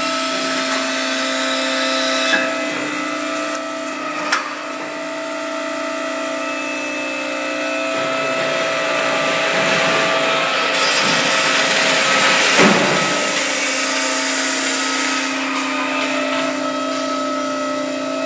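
Custom truck tire debeader running, its motor giving a steady whining hum as it pulls the steel bead wire out of a truck tire. Two sharp knocks come about two and four seconds in, and a louder, noisier stretch swells up around ten seconds in and fades again after about three seconds.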